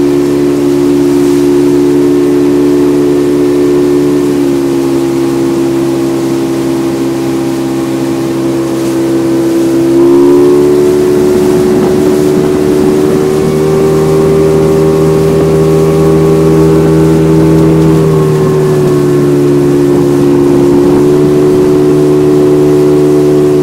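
Motorboat engine running under way, a loud steady drone whose pitch shifts a few times: it eases slightly a few seconds in, rises about ten seconds in, drops back around eighteen seconds, and rises again shortly after.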